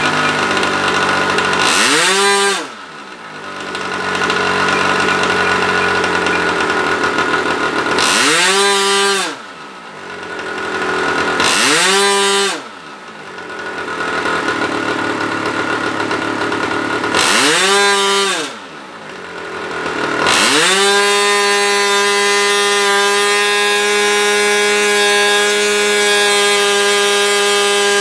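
Model airplane's .65-size engine on a ground run, running at high speed. Its revs fall sharply to a low idle and climb back four times as it is throttled back and opened up, then it holds steady at high speed for the last several seconds.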